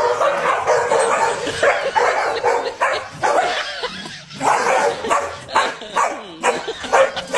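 A corgi and a golden retriever barking and yipping excitedly at each other through a glass door, in a fast run of barks with a short pause about four seconds in.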